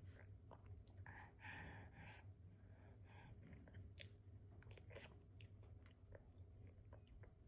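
A baby faintly chewing and smacking on soft finger food, with scattered small mouth clicks and smacks.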